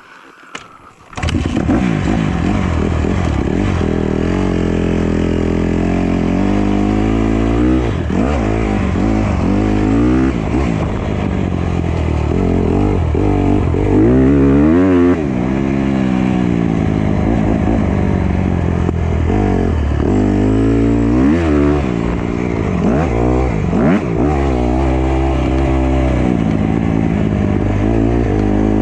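Honda CRF150R four-stroke single-cylinder motocross bike being ridden hard, the engine revving up and falling back again and again as the throttle opens and closes. It starts about a second in.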